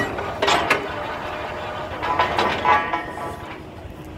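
Metal clanking at a truck-mounted borewell drilling rig as steel drill pipe and tools are handled: sharp knocks at the start and about half a second in, then a ringing metallic tone from about two seconds in, over a low steady rumble.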